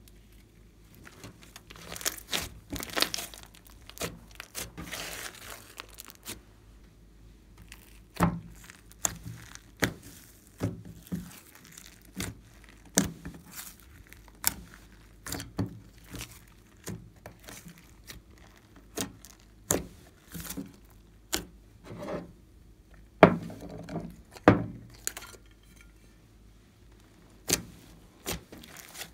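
Glossy slime being squished, stretched and kneaded by hand, giving irregular sticky pops and clicks as air pockets burst, with a denser crackly patch a few seconds in.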